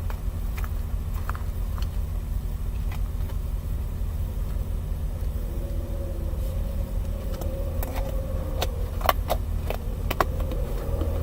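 Steady low rumble inside a car's cabin with the engine running, with a few sharp clicks or taps near the end.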